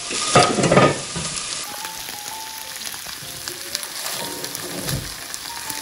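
Marinated pork ribs sizzling in a frying pan while metal tongs turn the pieces, with light clicks of the tongs against the pan. A short clatter comes about half a second in.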